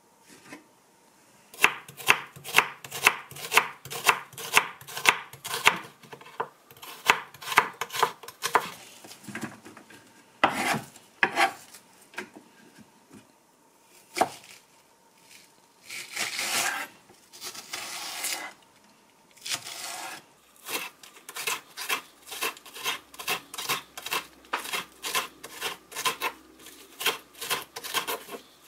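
Kitchen knife chopping on a cutting board in quick runs of strokes, about three a second, with pauses between runs and a few longer scraping sounds in the middle.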